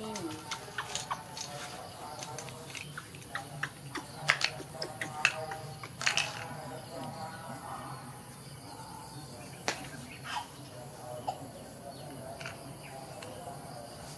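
Irregular sharp clicks and light taps of small plastic feeding items being handled, the loudest a few seconds in, over a low steady hum.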